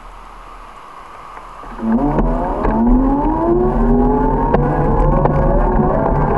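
A motor vehicle's engine comes in loud about two seconds in and accelerates, its pitch rising for about a second and then holding steady.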